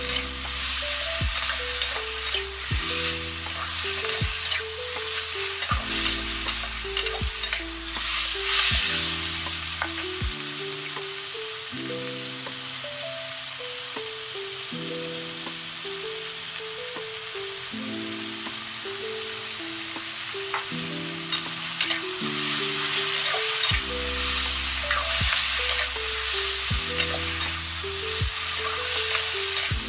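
Stir-fry sizzling steadily in a wok, with scattered clicks and scrapes of a spatula tossing the food. Soft background music plays underneath, and its bass line drops out for the middle part.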